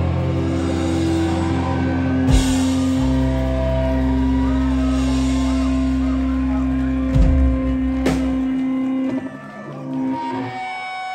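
Live rock band with electric guitars and drum kit playing loud held chords, with a few heavy drum and cymbal hits. The low notes drop out about nine seconds in, leaving quieter guitar ringing on.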